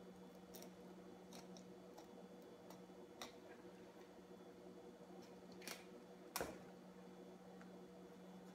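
Faint clicks and taps of a fillet knife working small largemouth bass on a cutting board, over a steady low hum; one sharper knock about six seconds in.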